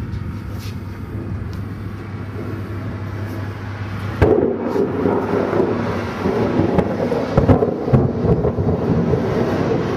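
Thunder from a supercell thunderstorm, breaking in suddenly about four seconds in and rumbling on to the end, over a steady low hum.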